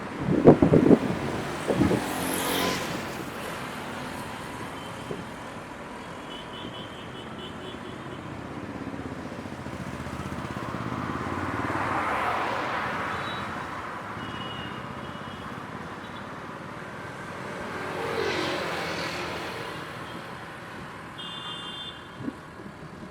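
Road traffic: vehicles passing one after another, with loud rumbling jolts in the first few seconds, one vehicle swelling and fading past in the middle and another near the end. A few short, high beeps sound in the background.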